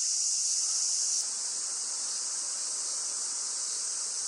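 Chorus of cicadas giving a steady, high-pitched drone, easing slightly in loudness about a second in.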